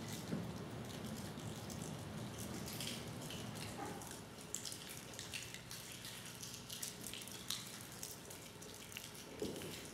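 A quiet pause in a church filled with scattered small crinkles and clicks as the congregation handles and eats communion crackers. A low steady hum fades out about four seconds in.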